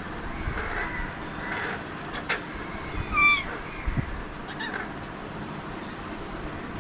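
Alexandrine parakeet calling: one loud, harsh squawk about three seconds in, with shorter, fainter calls around it.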